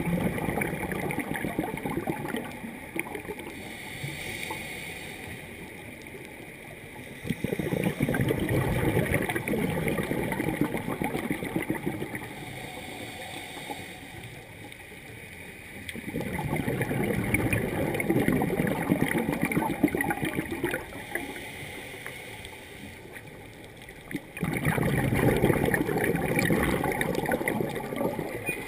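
Scuba diver breathing through a regulator underwater: long bubbling gurgles of exhaled air, four of them about eight seconds apart, with quieter hissing inhalations between.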